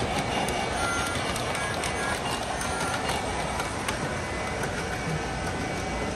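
Model trains running on layouts: a steady rumble with scattered light clicks of wheels on track, over the general din of a busy hall.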